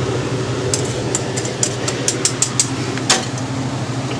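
A utensil clicking and tapping against a baking dish of chicken pot pie filling, about a dozen light taps over two seconds with a sharper knock near the end, over a steady low hum.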